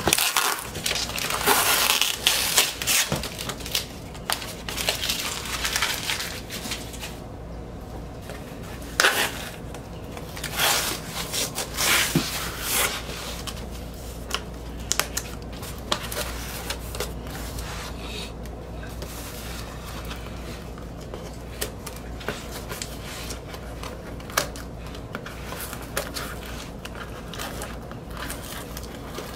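A cardboard record mailer being unwrapped: packing wrap and tape crinkling and tearing, busiest in the first seven seconds, then scattered handling clicks and scrapes. Near the end, scissors cut at the box's packing tape. A steady low hum runs underneath.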